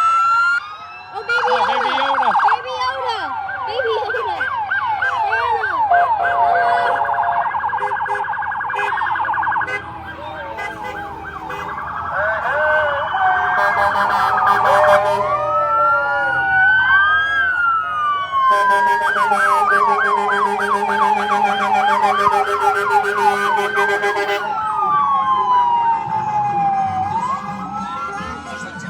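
Emergency-vehicle electronic siren sounding continuously and switching between tones: slow rising-and-falling wails, fast repeated yelps and a very rapid warble.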